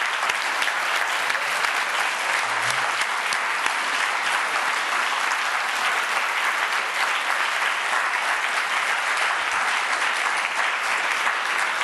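A roomful of people applauding, steady and sustained.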